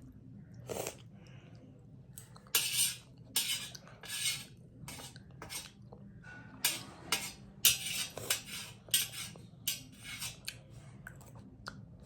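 Eating noodles close to the microphone: a run of short, irregular clinks and scrapes of a utensil against the bowl, about a dozen or more.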